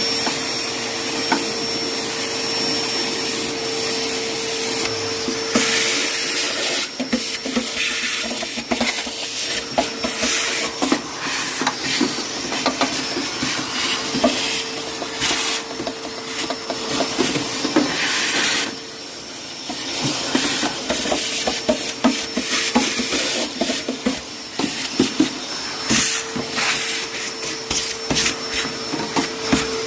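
A powerful vacuum cleaner runs steadily with a whining motor, sucking debris out of a car's battery bay. Many small clicks and rattles come from grit and the nozzle. It briefly goes quieter about two-thirds through.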